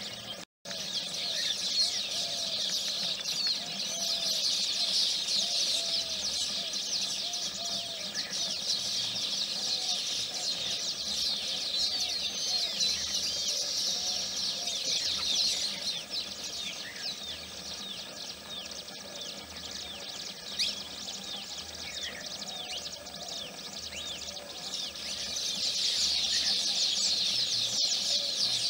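Dense chorus of male baya weavers chattering and twittering at their hanging nests, rapid high chirps overlapping without a break, the courtship chatter males give while wing-fluttering at the nest. Lower repeated calls run beneath it in the first half, and the chorus grows louder again near the end.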